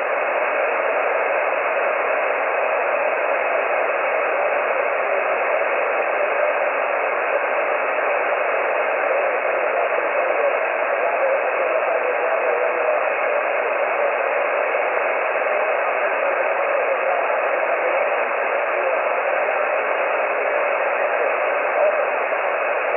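Steady hiss of 20-metre band noise from an HF amateur radio transceiver receiving single-sideband on 14.213 MHz, with no station being heard.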